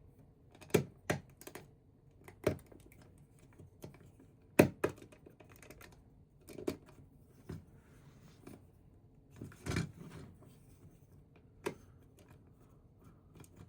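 Plastic LEGO bricks clicking and tapping as pieces are handled and pressed together: about a dozen sharp, irregular clicks, the loudest about four and a half seconds in.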